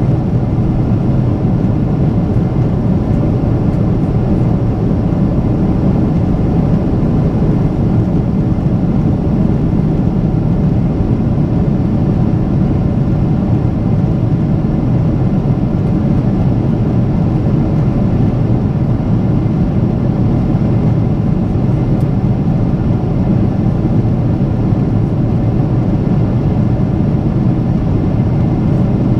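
Boeing 777-300ER's GE90 jet engines running steadily, heard from inside the passenger cabin as a loud, even rumble with no change in pitch or level.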